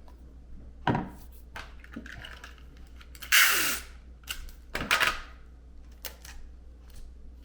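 Handling noises from wrapping a LiPo battery on a workbench: scattered clicks and knocks, with two louder rasping bursts about three and a half and five seconds in.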